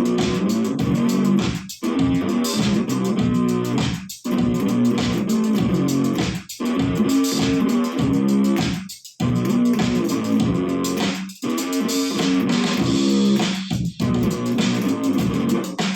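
Electric bass guitar played through a Zoom GM-200 effects unit on a punk-funk sound, a riff repeating in phrases about every two and a half seconds with short breaks between them.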